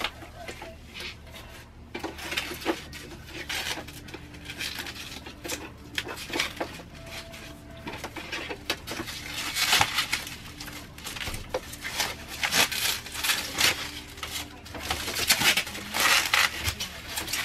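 White packaging wrap rustling and crinkling in irregular bursts, with small knocks of handling, as a boxed cutting machine is unwrapped. The rustling is loudest about ten seconds in and again near the end.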